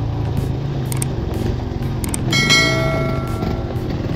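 Motorcycle engine running at a steady low speed on a dirt trail. About two and a half seconds in, a short bell-like ringing tone sounds and fades within a second.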